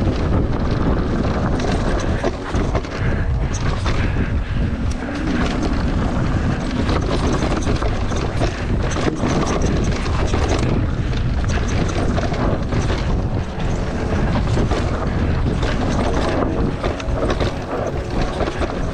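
Wind buffeting the microphone over the steady rumble of a mountain bike riding a dirt trail at speed, with frequent rattles and knocks from the bike over rough ground.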